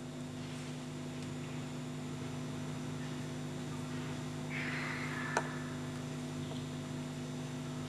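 Steady electrical hum over a faint hiss, with a single short click about five seconds in.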